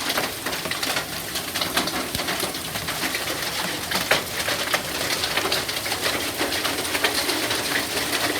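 Hail and heavy rain falling, with hailstones striking hard surfaces in a dense patter of sharp ticks over a steady hiss.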